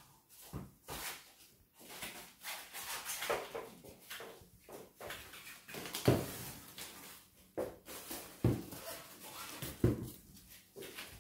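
Umbrella canopy rustling and its ribs and frame knocking as a cat paws at it and climbs onto it, with irregular scuffs and several louder knocks about six, seven and a half, eight and a half and ten seconds in.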